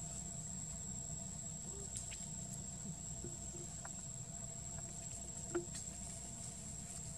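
Faint outdoor ambience: a steady high-pitched insect drone over a low rumble, with a few scattered light clicks, the sharpest about five and a half seconds in.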